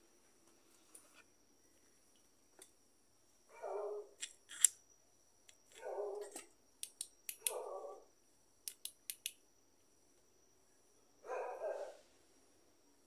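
An animal calling four times, each call about half a second long, with sharp high clicks scattered between the calls and a thin steady high tone throughout.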